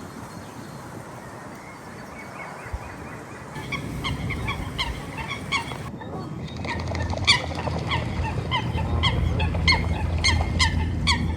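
A flock of geese honking: many short, repeated calls that start about a third of the way in and grow denser past the middle, over a low rumble.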